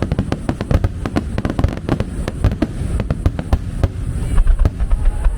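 Aerial fireworks going off in a dense, rapid barrage of bangs and crackles, many per second, over a deep rumble.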